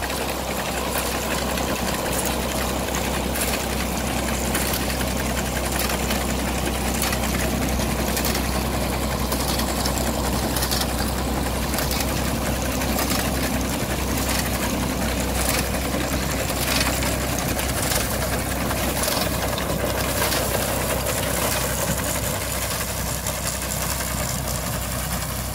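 1958 Fordson Dexter tractor's three-cylinder diesel engine running steadily under load as it pulls a 1941 McCormick reaper and binder cutting oats. The binder's moving mechanism clicks and clatters irregularly over the engine.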